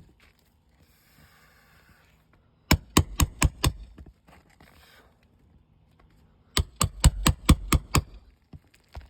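Quick runs of sharp hammer blows on a nail-pulling tool, working shingle nails loose on an asphalt-shingle roof. About five strikes come three seconds in and about eight more near seven seconds, with a brief faint scrape before the first run.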